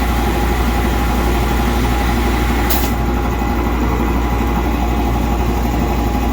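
Air compressor running steadily under load, pumping up its tank to pressure-test newly built shop air lines. It is a loud, even drone with a deep hum, and a short hiss about halfway through.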